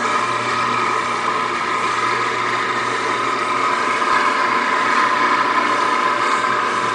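Electric automatic gate motor switching on abruptly and running steadily as it drives the gate, with a steady whine, during a travel-learning (course recording) run of its control board.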